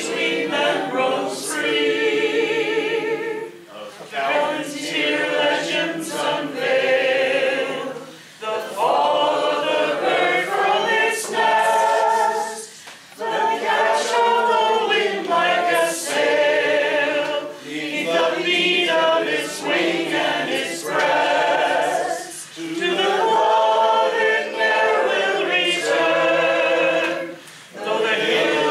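A group of men and women singing a song together unaccompanied, in phrases of about four to five seconds with brief breaks for breath between them.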